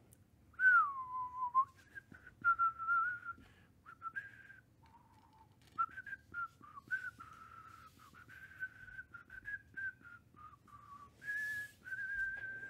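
A man whistling a wandering tune in many short notes, one clear tone sliding up and down in pitch.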